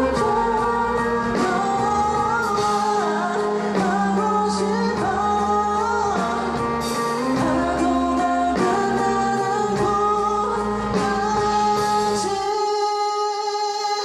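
Pop-rock ballad by a band with male vocals over electric bass, drums and keyboard. About twelve and a half seconds in, the bass and drums drop out and a held chord rings on.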